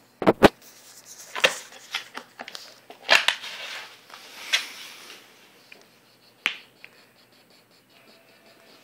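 Cardboard box creaking and crackling as a pug shifts and settles inside it: a series of sharp, irregular cracks, with the loudest near the start and about three seconds in.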